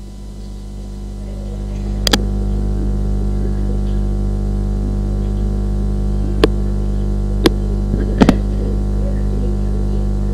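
Steady low electrical hum that swells over the first two seconds and then holds level, with a few sharp clicks: two about two seconds in, single ones later, and a quick double click near the end.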